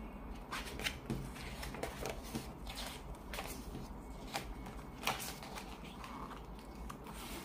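Quiet rustling of a picture book's paper pages as the cover is opened and pages are turned by hand, with scattered small clicks and crinkles.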